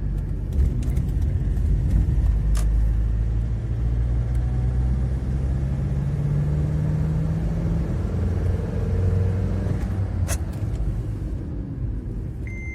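Honda FR-V's 2.2-litre turbodiesel pulling the car along, its engine note rising steadily under acceleration, dipping and rising again about eight seconds in, with two sharp clicks along the way. With the torn air-filter-to-turbo intake hose patched, the engine pulls cleanly, without the foreign noise it made under throttle.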